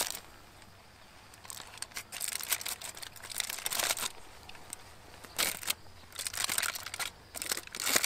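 Aluminium foil crinkling and rustling in irregular bursts as a foil packet is pulled open by hand, quiet at first and busier from about a second and a half in.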